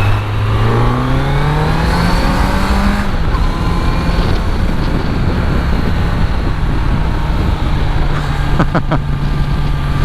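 Kawasaki Z900 motorcycle's inline-four engine accelerating, its pitch rising steadily over the first three seconds, then running steadily at cruising speed, with wind rushing over the microphone.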